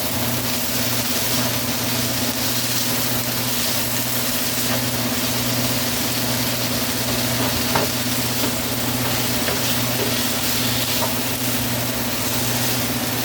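Green peppers and mushrooms sizzling steadily in a frying pan with olive oil, over a steady low hum. A small click about eight seconds in.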